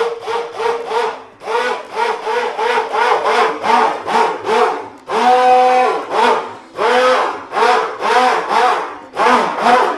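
Hand-held stick blender mixing goat-milk soap batter of olive oil and lye in a glass bowl. It runs in short pulses, about three a second, the motor's pitch rising and falling with each, with one longer steady run about halfway through.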